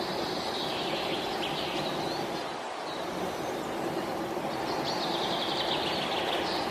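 Pied kingfisher giving two rapid chattering calls, one at the start and one near the end, each falling slightly in pitch, over a steady background hiss.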